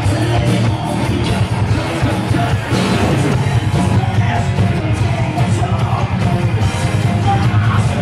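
Thrash metal band playing live: distorted electric guitars, bass and rapid drumming, with shouted vocals.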